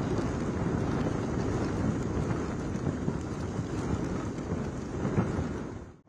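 Gusty cyclone wind buffeting the microphone with a low rumble, over a steady rush of rain; it fades out sharply at the very end.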